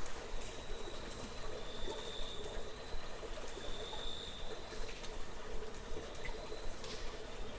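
Water trickling and dripping in a cave, with scattered short drip clicks. A faint high-pitched steady tone comes and goes every second or two.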